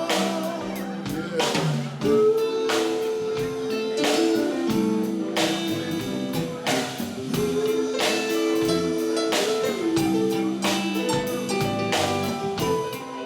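Slow soul ballad band music: sustained chords over a slow, steady drum beat, with a short sung 'yeah' about a second in.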